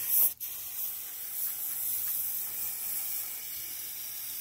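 Aerosol can of brake cleaner spraying onto a drum brake backing plate, a steady hiss with one brief break about half a second in.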